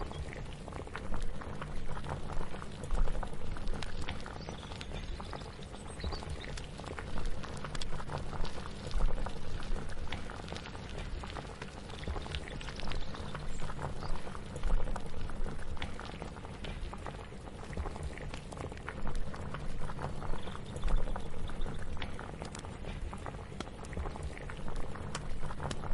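Kitchen ambience of a pot bubbling on the boil, with a low rumble beneath and many small clicks and clinks throughout, swelling and easing every couple of seconds.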